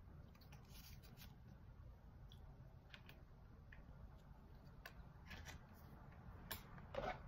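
Near silence, broken by faint rustles and soft clicks as paper tea bags are pulled apart and dropped into a plastic pitcher of water. The loudest rustle comes near the end.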